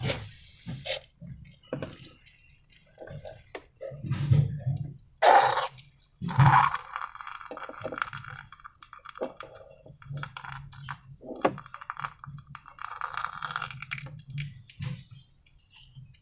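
Slime being handled and worked: irregular squelches, crackles and small clinks and scrapes of the containers and tools. There are two louder knocks about five and six and a half seconds in, and crackly stretches of slime in between.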